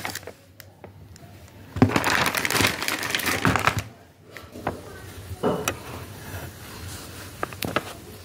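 Clear plastic packaging crinkling as it is handled, loudest for about two seconds in the first half, then a few light clicks and taps as items are set down on a wooden table.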